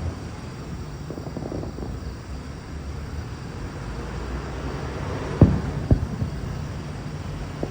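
Aerial fireworks bursting: two sharp booms a little past halfway, over a steady low rumble from the shells going off.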